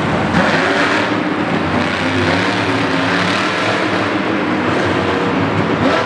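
Monster truck's supercharged V8 engine running loud, its pitch wavering slightly as the throttle is worked, over a dense arena din.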